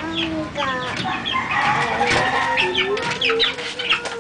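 Several chickens clucking and calling at once, with many short, sharp high chirps mixed among the lower clucks.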